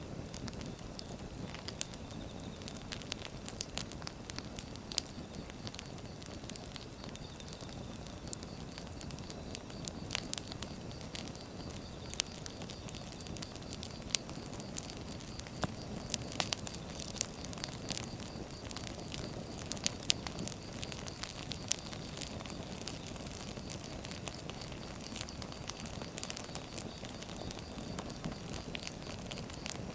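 Wood fire burning: a steady low rush of flames with sharp pops and crackles from the burning logs, scattered irregularly and coming more often in the middle.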